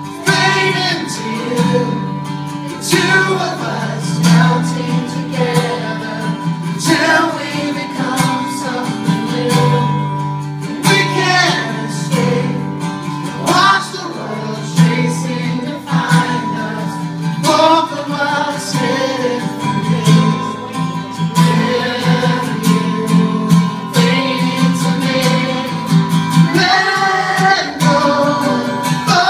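A man singing live while strumming an acoustic guitar, a solo acoustic song with voice and guitar together throughout.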